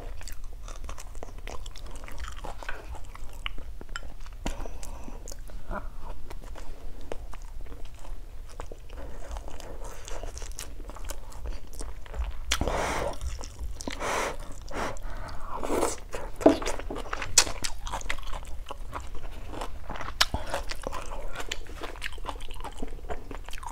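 Close-up mouth sounds of a person eating: steady chewing and biting, with a crunchy bite into a fresh red chili near the start. About halfway through comes a longer, noisier stretch as noodles are slurped from the soup.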